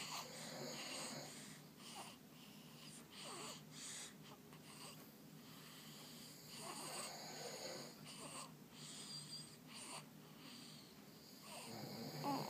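A sleeping baby breathing noisily through the nose and mouth: soft, irregular breaths every second or two, some with a faint squeak, louder near the end.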